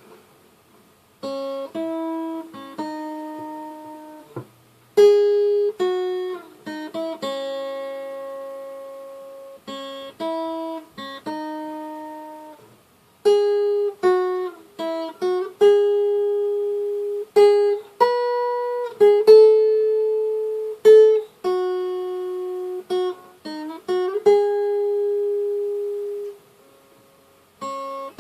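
Guitar playing a slow single-note solo melody. Individually picked notes, several left ringing for a second or more, with the playing breaking off briefly three times.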